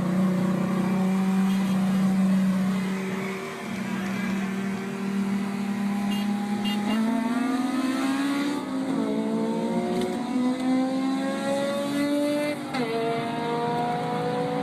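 Honda K20 inline-four engine held at steady high revs for several seconds, then accelerating hard with its pitch rising, shifting up twice, once around the middle and once near the end, each shift dropping the pitch before it climbs again.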